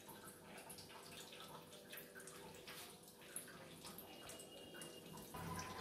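Near silence: faint room tone with light scattered clicks.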